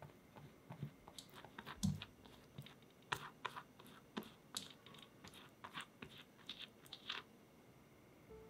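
Pastry brush spreading melted butter over freshly baked milk rolls: irregular soft, sticky clicks and light brushing strokes on the crust, with one low thump about two seconds in.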